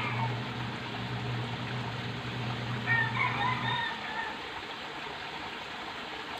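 A rooster crowing once, about three seconds in, over a steady low hum that cuts off shortly after.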